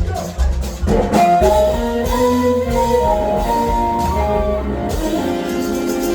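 Live blues band playing: drum hits, then a melodic instrumental run over the band, settling about five seconds in on a single held chord, the closing chord of the song.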